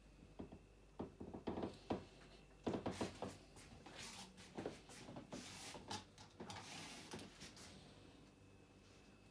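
Soft knocks, taps and scratchy rustles of cats moving about on a carpeted cat tree and a cushioned chair, scattered through the first seven or so seconds and then settling.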